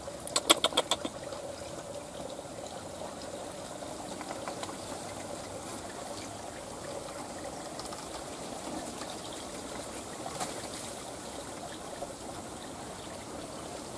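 Steady trickle of water in a rice paddy, with a quick run of about six sharp clicks in the first second.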